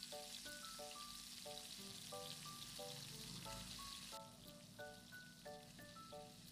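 Soft background music, a melody of short, evenly spaced notes, over the faint sizzle of fried balls in hot oil; the sizzle cuts off suddenly about four seconds in.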